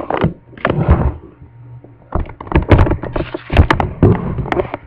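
Handling noise: an irregular run of loud knocks, clicks and rubbing close to the microphone as the recording device is moved and bumped.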